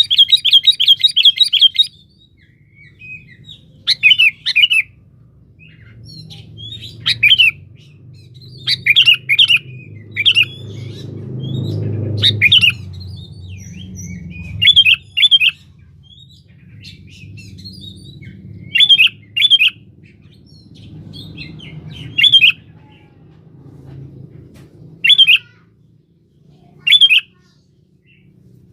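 Sooty-headed bulbul (kutilang) calling: a fast chattering run of notes at the start, then short loud phrases of two or three notes every few seconds, given as a call to a rival. A low background rumble swells around the middle.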